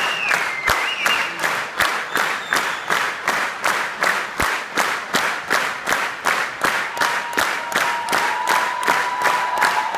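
Theatre audience clapping in unison in a steady rhythm, about three claps a second. A held musical note comes in about seven seconds in.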